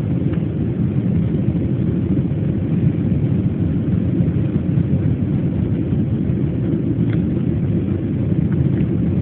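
Airliner cabin noise in the climb after take-off: a steady low rush of the jet engines and airflow, with a few faint clicks near the end.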